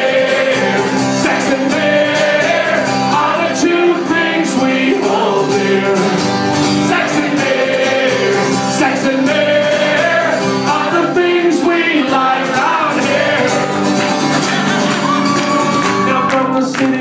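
Live song: strummed acoustic guitar with singing.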